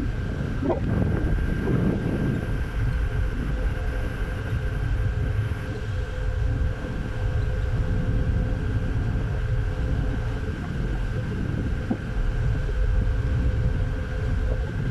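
A steady low engine rumble with wind buffeting the microphone, and a constant hum underneath.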